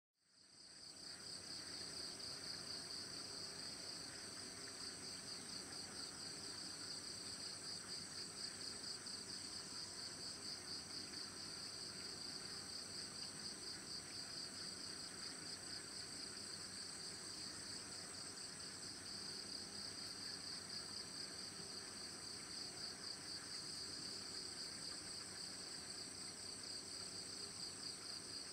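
A steady, high-pitched chorus of chirping insects, unbroken throughout, fading in at the very start.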